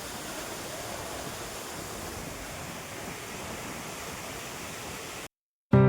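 Steady rushing noise of flowing water, which cuts off abruptly near the end; music begins just after.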